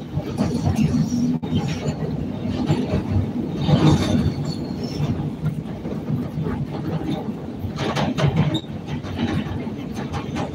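CTA Red Line 'L' train running on the elevated track, heard from inside the car: a steady rumble of wheels on rail, with louder clattering at about four seconds and again about eight seconds in.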